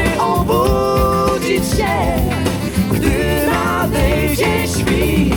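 Pop song with a sung vocal melody over a steady beat and bass, played back through a portable Bluetooth speaker for a sound test.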